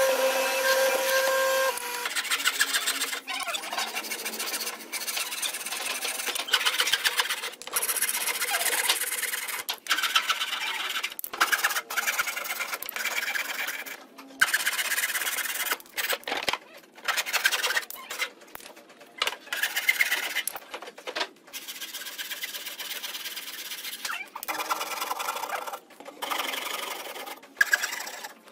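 A hollow-chisel mortising machine's motor whines for about the first two seconds and then cuts off. After that come stretches of irregular hand-tool work on wood with short pauses between them, ending in back-and-forth hand-saw strokes through timber.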